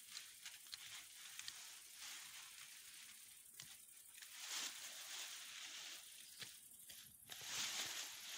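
Mint plants rustling as stems are cut and gathered by hand, with a few small snaps early on and two louder swells of rustling, about halfway through and near the end.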